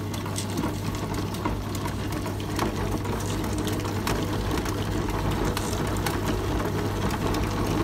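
Electric wet grinder running steadily with a constant motor hum, its grinding stone turning in the steel drum as soaked rice is ground into idli batter. Scattered light clicks come through.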